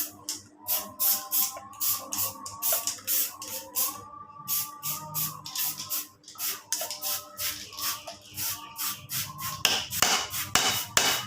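Background music: a steady shaker-like beat of about four strokes a second under a simple melody.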